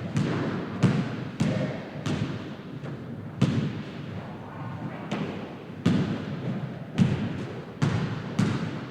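Basketball bouncing on a hard court, about a dozen uneven bounces with irregular gaps, each with a short echoing tail.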